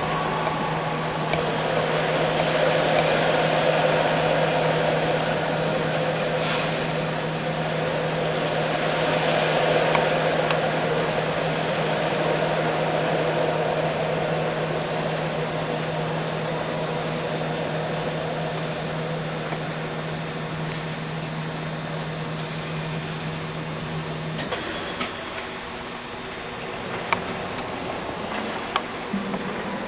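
Aircraft tug's drive motor running under load, pulling an aircraft of about 9,000 lb: a steady hum with a constant low tone. The tone cuts off suddenly about 24 seconds in, and a few sharp clicks follow near the end.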